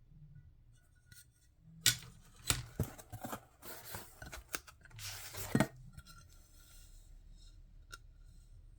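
Small sheets of stained glass being handled: a few sharp clinks about two seconds in, then a stretch of scraping and rustling that ends with a knock just before six seconds.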